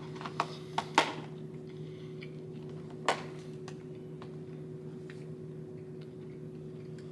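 A few sharp clicks and knocks, the loudest about a second in and another about three seconds in, over a steady low electrical hum.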